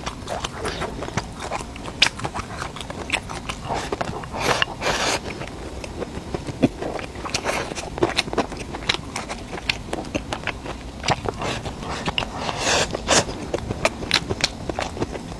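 A person biting and chewing food close to the microphone, making many irregular small clicks with a few short louder bursts.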